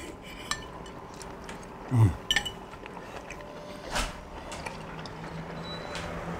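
Cutlery clinking against plates while eating: a few scattered clinks and taps, one with a short ring. A brief low vocal murmur about two seconds in.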